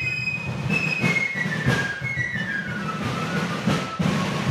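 Fife and drum music: the fifes play a run of notes stepping down the scale over steady drumming.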